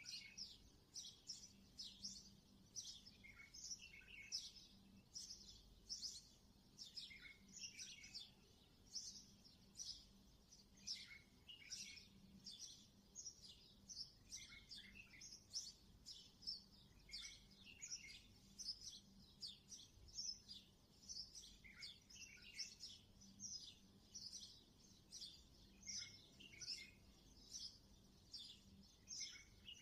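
Faint small birds chirping busily, with many short, high, falling chirps several times a second.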